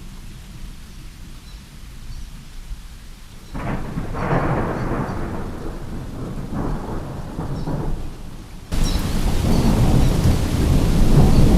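Thunderstorm: rain with a low rumble, then a roll of thunder about three and a half seconds in that fades over a few seconds. Near the end the sound jumps abruptly to heavier, louder rain and rumbling.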